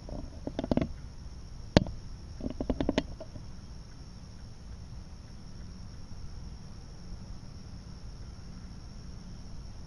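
Several quick clicks and knocks in the first three seconds, the loudest a single sharp snap just under two seconds in, over a steady low rumble.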